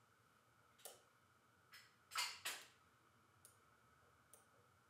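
Lock pick clicking against the pins in the keyway of a Millenco Magnum 7x4 security lock: about six light, sharp clicks at irregular spacing, the loudest two close together a little past two seconds in.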